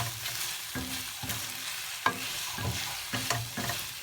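Chicken and green curry paste sizzling in a frying pan while being stirred, the utensil knocking and scraping against the pan every second or so.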